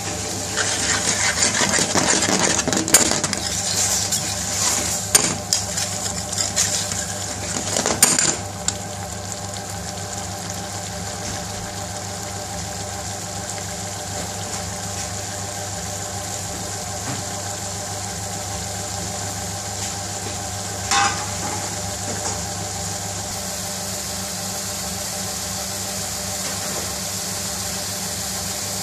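Metal spoon stirring a thick curry in a metal pan, scraping and clinking against the pan for the first eight seconds or so. After that only a steady hiss and hum remain, with a single brief clink about twenty seconds in.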